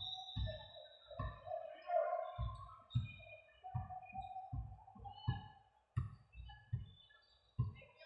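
Music-like sound: held tones that change pitch from note to note, over irregular soft low thumps.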